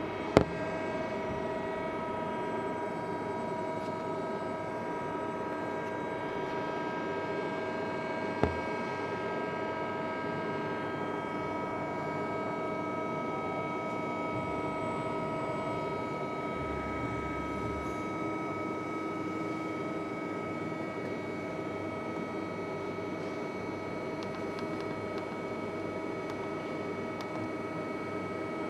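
HWACHEON Cutex 160A CNC turning-milling center running: a steady machine hum with several constant whining tones over it. Two sharp clicks stand out, one right at the start and one about eight seconds in.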